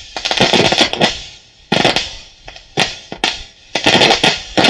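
Arvin 35R48 radio's loudspeaker playing a broadcast: music with sharp, irregular drum-like hits. The set is working again now that its dirty tube socket has been cleaned.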